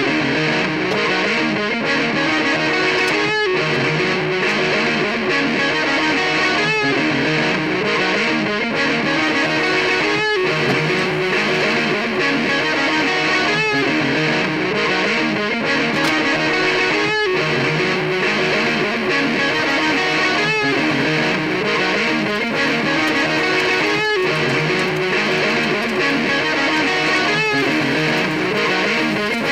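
Distorted electric guitar music: a looped rock riff played through a MOOER GE100 multi-effects unit's looper, repeating about every three and a half seconds.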